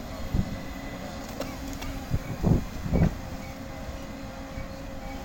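JCB backhoe loader's diesel engine running steadily while digging, with a few dull thumps about half a second, two and a half and three seconds in.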